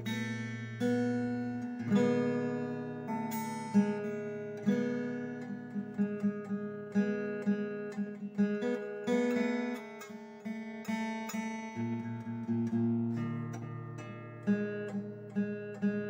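Acoustic guitar music: plucked notes and strummed chords, each note starting sharply and ringing out.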